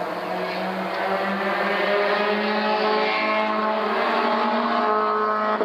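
A steady engine-like drone with a slightly wavering pitch, getting a little louder about a second in.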